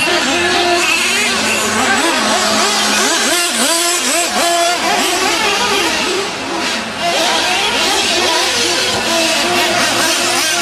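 Several nitro RC monster truck engines (small two-stroke glow engines) racing at once, their pitches overlapping and rising and falling constantly as the throttles open and close. The sound dips briefly a little past halfway.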